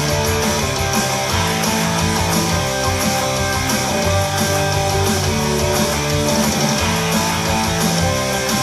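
Guitar-led music with a steady bass beat, played back through a speaker under test.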